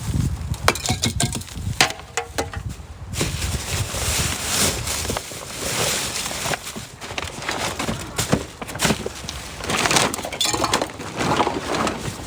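Irregular clinks, knocks and clattering of glass and other hard objects being rummaged through and handled.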